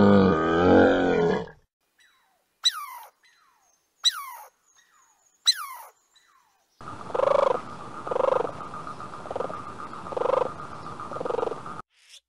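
A camel groaning low until about a second and a half in, then a squirrel's three sharp chirps, each falling in pitch, about a second and a half apart. After that comes a run of five rhythmic pulsing calls, about one a second, from an animal that the material does not name.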